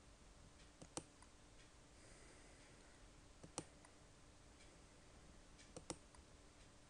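Computer mouse button clicked three times, roughly every two and a half seconds, each click a quick pair of sharp ticks, over faint steady room hum.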